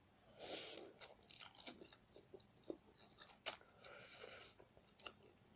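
Faint slurping and chewing of spicy instant noodles eaten from a fork: a hissing slurp about half a second in and another around four seconds in, with wet mouth clicks and chewing between them.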